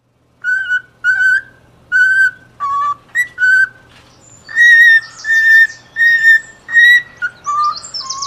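A bird whistling a run of about ten short, clear notes on two or three pitches, with a few rasping chirps mixed in about halfway through.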